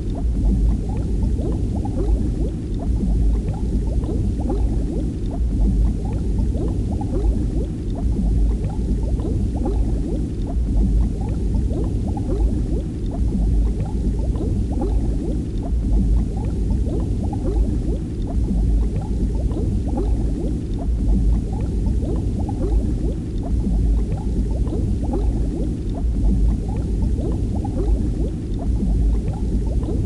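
Continuous underwater bubbling and gurgling of water: a dense low rush full of many small pops.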